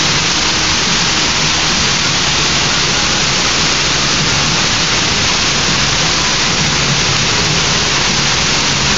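Water-show fountain running: a steady rush of falling, splashing water.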